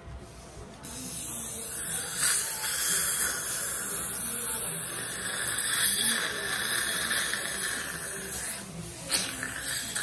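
A steady hiss of dental equipment in the mouth: water spray and suction from the hygienist's instrument during a cleaning. It starts about a second in and breaks off briefly near the end.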